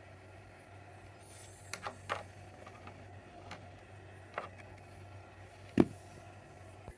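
A few light clicks and knocks over a faint steady hum, with one sharper knock near six seconds in.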